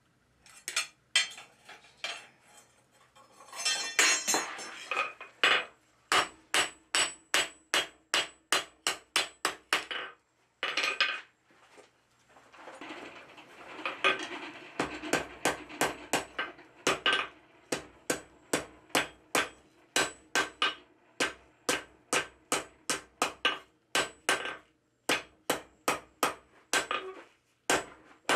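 Hand hammer striking a red-hot steel bar on an anvil, about three blows a second, with a short pause partway through. The anvil rings under each blow.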